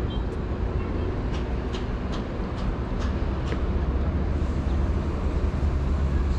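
Steady rushing rumble of a fast mountain stream, with a run of short, sharp ticks over the first few seconds.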